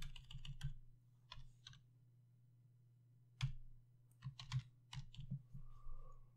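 Computer keyboard keys typed in short runs of clicks, with a pause of about a second and a half in the middle, over a steady low hum.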